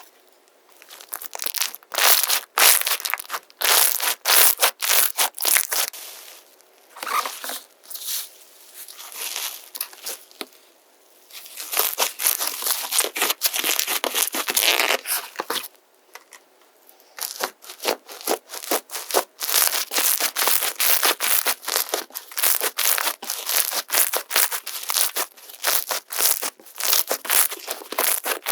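Slime squeezed, poked and pinched by hand, giving rapid runs of sticky crackling clicks with short pauses between handfuls.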